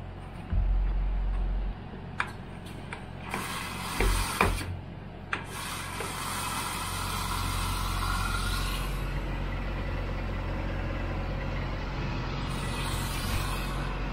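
Semi truck's diesel engine idling, with scattered clicks and knocks and a short hiss about three and a half seconds in, then a steady rushing noise from about six seconds on.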